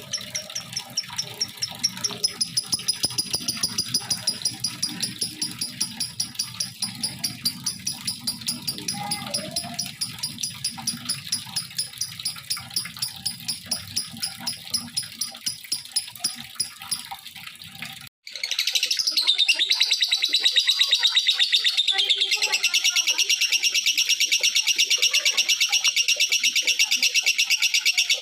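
Lovebirds chirping in long, unbroken runs of shrill, rapidly repeated chirps, about four a second: the continuous 'ngekek' song used as a lure to set other lovebirds singing. About two-thirds of the way through it cuts off abruptly and resumes as a denser, slightly lower chirping.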